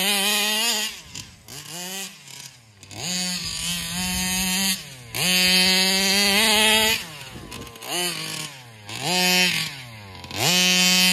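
Meyer-ported Rovan 32cc two-stroke RC engine breathing through a Taylor RC side pipe and Rooster Tail 990 carburetor, revving up hard to full throttle and dropping back toward idle again and again, about five bursts in a row, as the car is driven.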